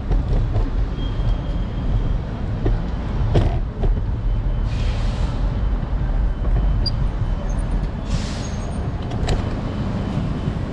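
City street traffic noise with a steady low rumble. Two short bursts of hiss come about five and eight seconds in, and there are a couple of sharp knocks.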